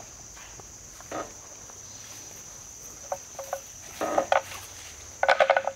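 Insects droning steadily at a high pitch, with short ringing clanks from a water buffalo's neck bell as the herd moves: scattered single strikes, then a loud quick jangle near the end.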